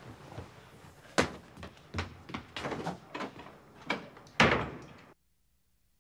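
A run of sharp knocks and thumps on wood, then a loud door slam about four and a half seconds in, after which all sound stops dead.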